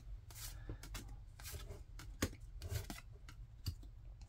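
Pokémon trading cards being slid one at a time off the front of a hand-held stack and onto the back, making soft, irregular card flicks and rustles a few times a second.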